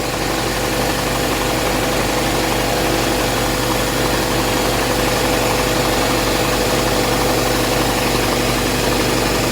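Electric air compressor running steadily under load, its pump building tank pressure with a constant hum and rattle.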